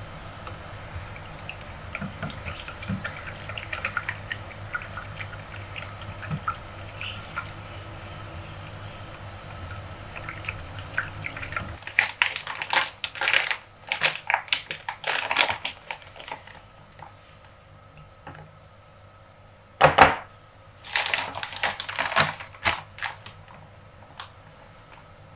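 Kitchen handling sounds: a low steady hum with scattered light clicks, then clattering knocks of a plastic measuring cup and a glass bowl on a stone countertop as flour is measured into the bowl. The loudest is a single knock about twenty seconds in.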